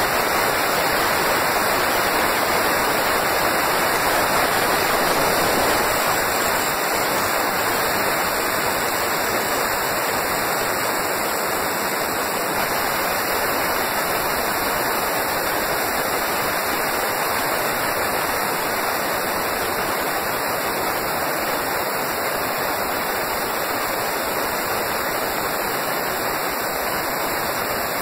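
CNC wood lathe cutting a spinning wooden blank: a steady rushing noise of the motor and the tool shaving wood, a little louder during the first six seconds.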